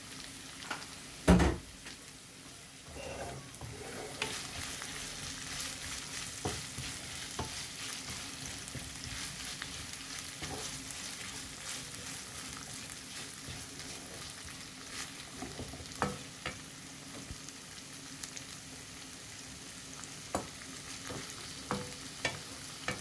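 Onions and sliced capsicum frying in oil in a karahi, a steady sizzle, with a spoon stirring and scraping the pan in scattered clicks and knocks, the loudest about a second and a half in.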